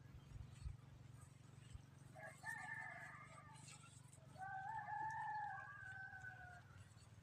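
A rooster crowing twice, the second crow longer, over a faint low steady hum.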